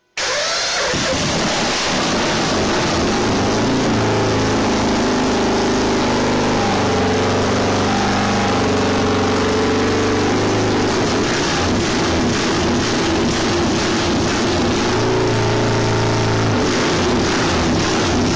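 Racing motorcycle engine started with a battery-powered roller starter turning its rear wheel, then running loud and steady, its pitch shifting now and then.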